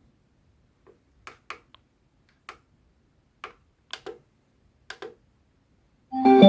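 Scattered single clicks of the ENUOSUMA retro clock radio's buttons being pressed, then near the end one of its electronic alarm sounds starts playing through its small speaker, a loud organ-like chime melody of held notes.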